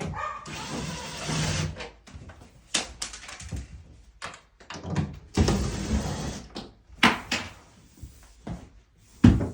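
Wooden bed-frame parts being handled during disassembly: scraping and sliding of panels, broken up by several knocks and thuds, with the loudest knock near the end.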